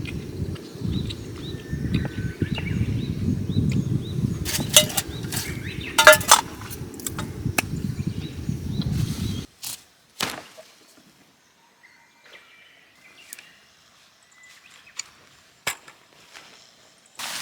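A low, steady rumble with birds chirping above it and a few sharp clicks and knocks in the middle. About nine and a half seconds in, the rumble cuts off abruptly, leaving near quiet broken by occasional clicks.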